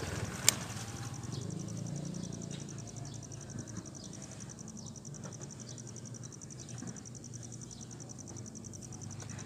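An insect trilling steadily, a fast, even, high-pitched pulsing, over a low rumble of wind. A single sharp click about half a second in.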